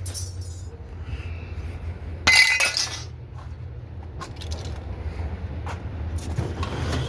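A piece of scrap clangs and clatters once, with a brief ringing, about two seconds in, over a steady low rumble. Fainter knocks follow.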